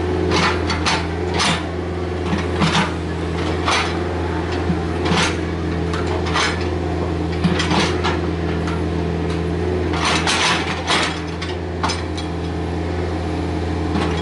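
Komatsu PC45MR mini excavator's diesel engine running steadily, with a dozen or so irregular metallic clanks and knocks from the machine's working parts.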